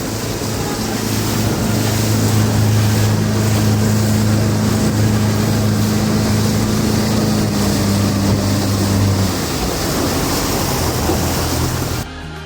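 Motorboat engine running with a steady low hum under a heavy rush of wind and water noise; the hum stops about nine seconds in while the wind and water carry on. Near the end the sound cuts abruptly to music.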